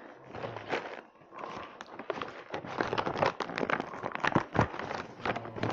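Paper gift bag rustling and crinkling as it is handled and pulled open at its sealed top, with many short crackles.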